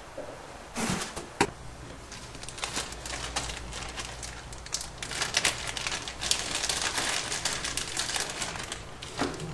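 Hands handling small metal fittings and tubing at a gas water heater: a run of quick, irregular clicks and rattles, with two sharper knocks about a second in and another near the end.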